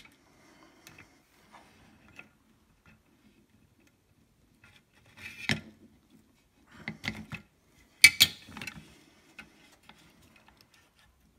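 A circuit board and small hand tools being handled during soldering work. Faint scattered clicks and rustles, with short louder clatters about halfway through and twice more later, the last one loudest.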